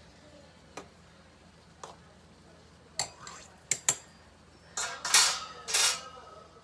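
A metal utensil clinking against a cooking pan while food is stirred: a few separate taps, then two louder scrapes across the pan near the end.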